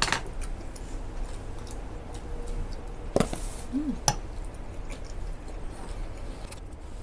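A few scattered sharp clicks and taps from handling tableware and takeout food containers during a meal, over a low steady hum.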